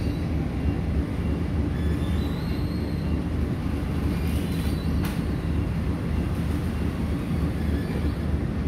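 Ferry engine running with a steady low rumble beneath the deck, mixed with water and wind noise.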